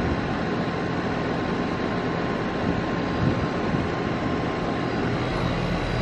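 Steady mechanical droning noise with a low hum running underneath, and a faint thin tone that fades out about five seconds in.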